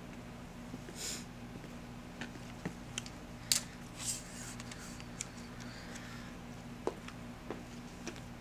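Scattered light clicks and brief rustles of a phone tripod with a ring light being handled and adjusted, over a steady low hum.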